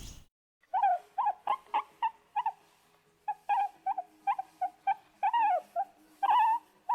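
An animal giving a rapid, irregular series of short pitched calls, each with a quick bend in pitch, about twenty in all.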